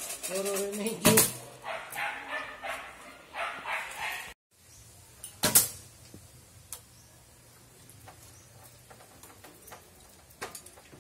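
Recurve bow shot about a second in: a single sharp snap of the string on release, over short pitched calls repeating in the background. After a sudden drop-out about four seconds in, the sound is much quieter, with one more sharp click about a second later and a few light ticks of bow handling.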